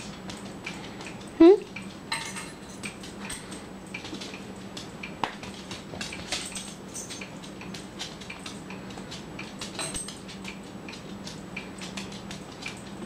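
Cavalier King Charles Spaniel fidgeting and scratching on a tile floor: many light metallic clinks and clicks from its collar tags and nails. About a second and a half in, the dog gives one short whine that rises sharply in pitch.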